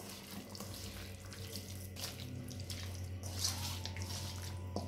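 Wet squelching of a hand squeezing and kneading raw chicken pieces in a thick yogurt marinade in an aluminium bowl, in irregular strokes over a steady low hum.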